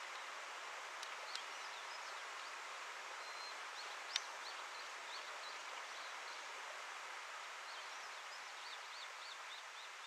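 Outdoor ambience: a steady hiss with small birds chirping over it, ending in a run of quick repeated notes. A sharp click about four seconds in is the loudest sound, with two fainter clicks about a second in.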